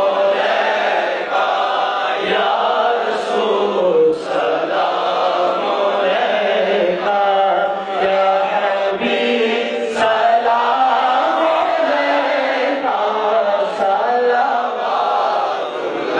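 Men's voices chanting continuously in a devotional chant, amplified through a microphone, with long held notes.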